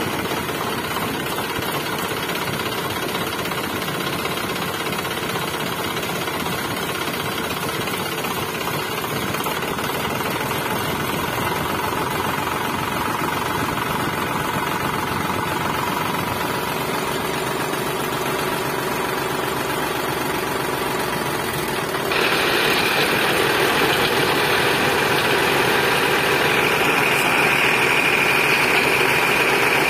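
The small motor and gears of a homemade mini tractor running steadily. About two-thirds through the sound gets louder, and a high whine comes in near the end.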